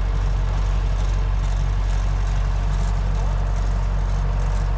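Rice combine harvester's engine running steadily, a low, even hum.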